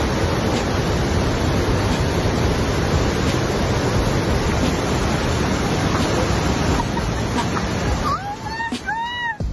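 Waterfall rushing with a steady, loud roar. Near the end, a person's voice cries out in a few short rising-and-falling yelps.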